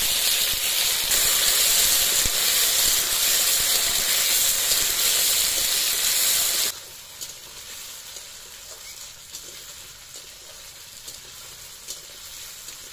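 Peeled taro corms (gati kochu) dropped into hot oil in a kadai, setting off a loud sizzle for about seven seconds. The sizzle then drops suddenly to a quieter, steady frying sizzle with small crackles.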